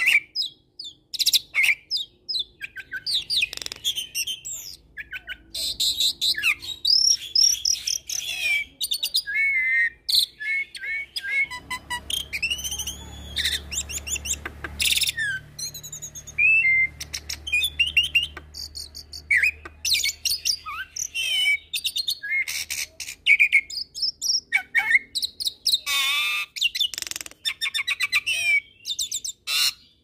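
Hybrid jalak (Nias hill myna × Asian pied starling) singing a long, varied song: rapid sliding whistles, chirps and clicking trills with hardly a pause, some notes rising and falling in quick runs.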